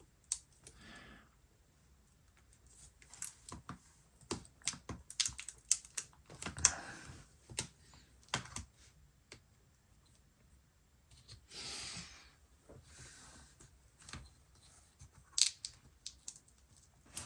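Scattered small clicks, taps and light rustles of hands working inside an open MacBook Pro, plugging a cable connector onto its board. The clicks come in irregular clusters, thickest in the first half.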